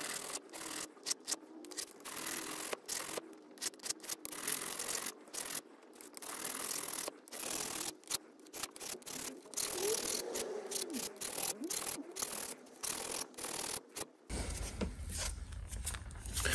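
Fret crowning file rasping over the guitar's metal frets in many short back-and-forth strokes with brief pauses, re-crowning frets that were levelled flat. The filing stops a little before the end.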